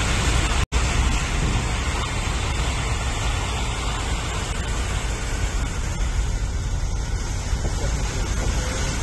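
Steady rushing noise with a low rumble: vehicles moving through floodwater on a rain-soaked street. It cuts out for an instant just under a second in.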